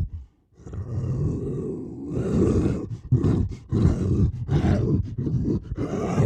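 Monster creature sound effect of the Kothoga: a long, low, rough growl, then a quick string of short choppy growls.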